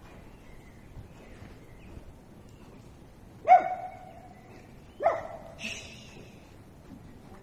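A dog barking twice, single sharp barks about a second and a half apart.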